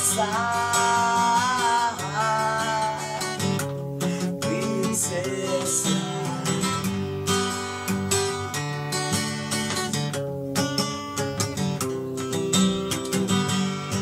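Acoustic guitar strummed in a reggae-style rhythm, with a man's voice singing over it in the first few seconds.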